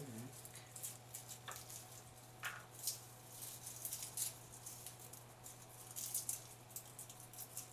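Faint, scattered ticks and crackles of fingers peeling the papery skins off garlic cloves, over a steady low hum.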